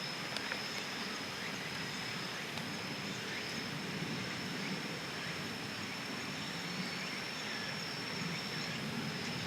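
An insect trilling with one steady high-pitched note that fades out near the end, over a low, even outdoor hiss.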